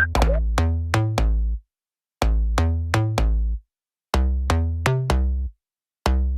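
Background music: an electronic track with a drum-machine beat and deep bass notes, stopping dead for about half a second three times.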